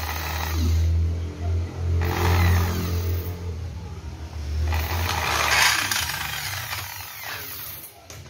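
Hand-held electric drill boring into a Stihl 070 chainsaw crankcase. The motor hums steadily and the bit cuts the metal with a hiss in three stretches, and the drilling stops shortly before the end.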